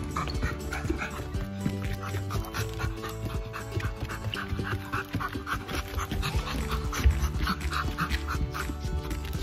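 Black Labrador puppy panting quickly and rhythmically close up, a tennis ball in its mouth, over background music.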